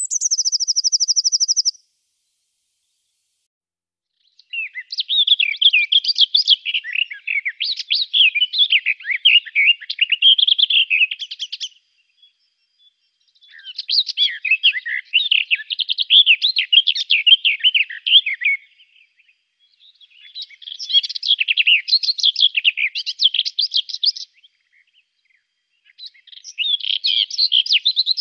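Songbird song: a short, fast, high trill at the start, then long, varied chattering phrases sung in bouts of several seconds, each broken by a pause of about a second and a half.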